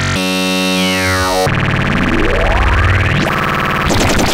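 Small analog Eurorack modular synthesizer voice sounding a buzzy tone rich in overtones. A pitch sweep falls about a second in, then the tone thickens and a long glide rises. Near the end it breaks into harsh, chaotic noise.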